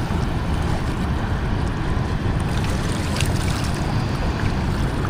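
Steady rushing of water pouring over a dam spillway, with a few faint clicks partway through.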